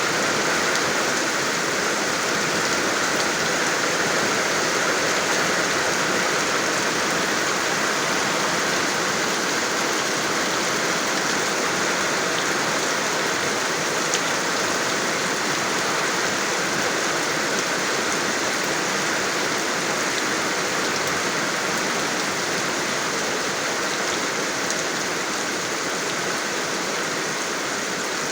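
Steady, even rainfall: a constant hiss of rain falling on surfaces.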